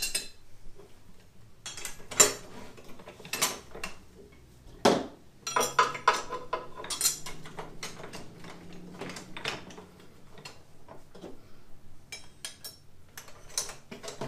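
Steel gears, shafts and shift forks of an Acura TSX six-speed gear set clinking and clattering together as they are gathered up by hand, in irregular clanks with the loudest about two and five seconds in.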